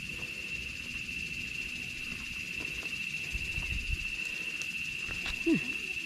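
Insects calling in a steady, unbroken high-pitched drone, with a low rumble underneath. A brief falling sound about five and a half seconds in is the loudest moment.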